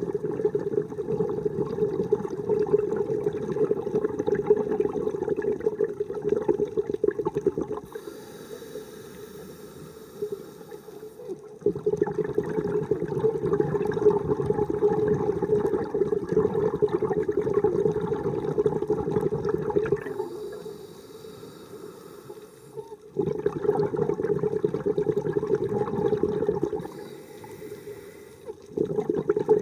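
Scuba diver breathing through a regulator underwater: long bubbling exhalations of several seconds, alternating three times with shorter, quieter inhalations that carry a thin hiss.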